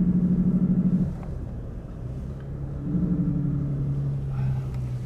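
Engine hum and road rumble heard inside a Toyota's cabin while driving. The hum is loud for about a second, drops away, and comes back around three seconds in.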